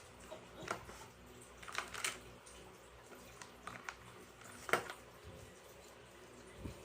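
Light, scattered clicks and knocks of toy dishes, cups and spoons being handled while they are washed, with the sharpest knock about two-thirds of the way through.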